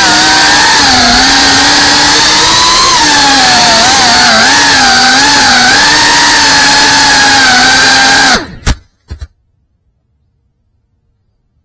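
FPV racing quadcopter's motors and propellers whining loudly, heard from its onboard camera, the pitch wavering up and down with the throttle. The motors cut off abruptly about eight and a half seconds in, followed by two thumps as the quad comes down on the ground.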